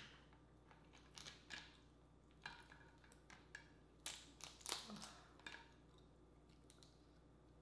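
Dungeness crab shell cracked and pulled apart by hand: a run of sharp cracks and snaps, busiest about four to five seconds in.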